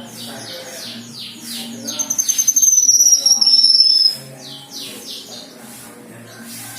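Cucak kinoi singing: a quick run of short, high, downward-sweeping notes, then a loud, high, trilled whistle that falls slowly in pitch from about two seconds in to about four, followed by more short sweeping notes.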